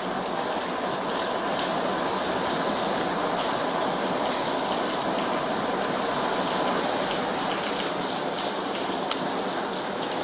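Steady rushing noise, even and unbroken, with a faint steady tone under it.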